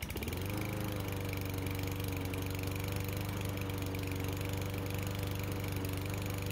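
Craftsman M270's 159 cc gas walk-behind mower engine catching just after a pull-start and rising to speed within about half a second. It then runs steadily at an even pitch.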